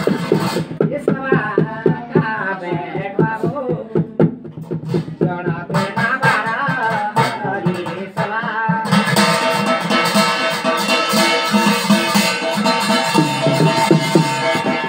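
Garhwali jagar ritual music: fast, steady drumming with singing voices wavering over it. About nine seconds in, a layer of steady ringing tones comes in and the sound grows brighter and fuller.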